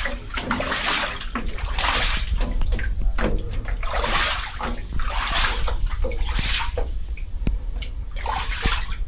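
Water sloshing and splashing as a person wades through deep floodwater inside a flooded submarine compartment, a surge of water with each stride, roughly one a second, pausing briefly twice.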